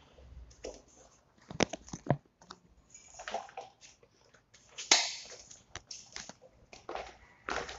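Sandalled footsteps on a tiled floor and stairs: irregular slaps and scuffs, with some rustling of clothing and handling in between.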